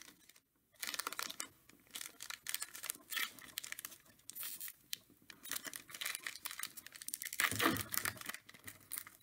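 Foil wrapper of a Donruss football card pack being pulled and torn open by hand, a run of uneven crinkling rips that starts about a second in and is loudest near the end.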